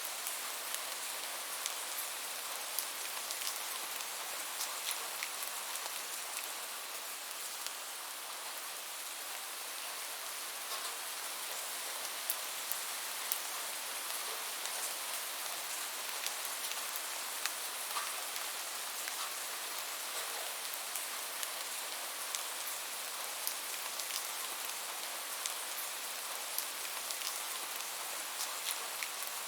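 Steady rainfall: an even hiss of rain with many small, sharp drop ticks scattered throughout.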